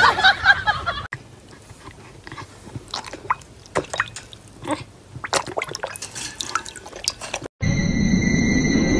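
Water splashing and dripping in a plastic tub as a dog pushes its muzzle into it: small, irregular splashes. It opens with about a second of louder sound, and after a sudden cut it ends on a steady hiss with high, steady tones.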